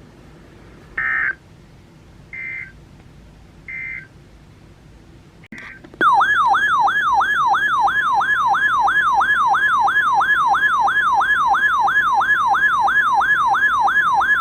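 Three short data-burst screeches of an Emergency Alert System end-of-message code, about a second apart, closing the alert. About six seconds in, a loud electronic siren-style alert tone starts: a falling sweep repeating about three times a second.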